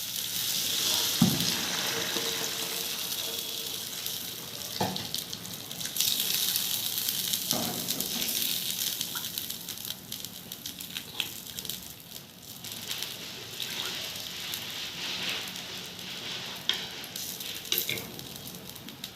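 Water poured into a hot pan of fried potatoes and spice paste, sizzling and slowly dying down as the curry comes toward a simmer, with a few short knocks from stirring.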